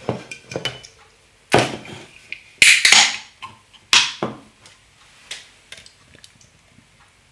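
Clattering and knocking of objects being handled on a bench: a run of short knocks and scrapes, the loudest a sharp crack about two and a half seconds in with a brief rushing noise after it, then a few faint ticks.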